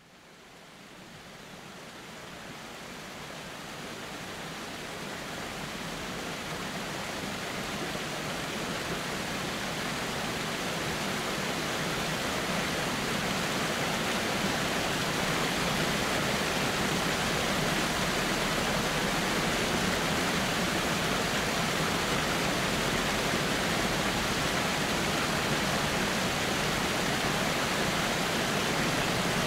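Waterfall rushing: a steady, even noise of falling water that fades in gradually over the first fifteen seconds or so, then holds level.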